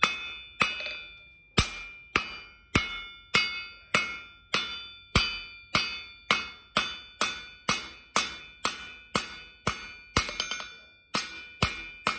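Hand hammer striking a hot aluminum bar on a steel anvil, forging a taper: steady blows about two a second, each leaving the anvil ringing, with a quick run of lighter taps about ten seconds in. The aluminum has been brought to forging heat, soft enough to move under the hammer without cracking.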